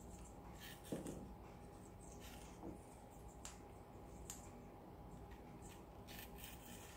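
Quaker parrot's beak nibbling a cut apple: faint, irregular crunchy clicks, the clearest about a second in.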